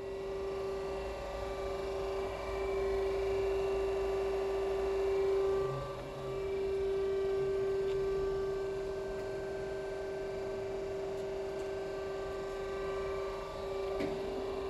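Estarta 312 centerless grinder running under power, a steady machine hum with one strong, even mid-pitched tone and fainter higher tones over it. A light click sounds near the end.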